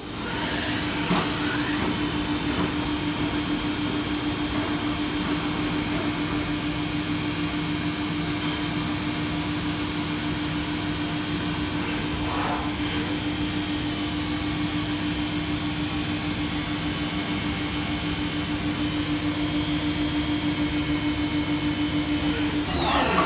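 HAAS TM-3P vertical machining center's spindle and end mill cutting metal, a steady high-pitched whine over a lower hum. Just before the end the pitch falls as the spindle slows.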